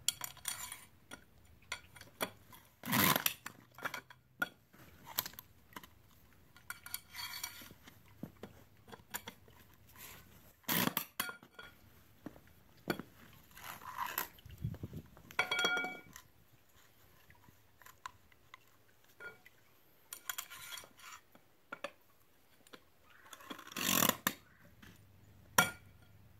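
Scattered metal clicks, clinks and knocks as the springs on a safety pool cover's straps are levered onto their deck anchors with a cover pole. One clink about halfway through rings briefly.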